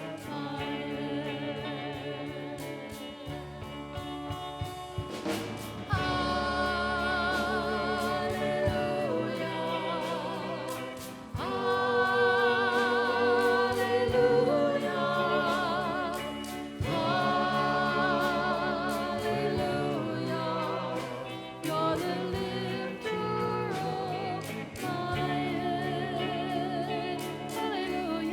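Worship song: voices sing long held notes with vibrato over instrumental accompaniment, in phrases of a few seconds each.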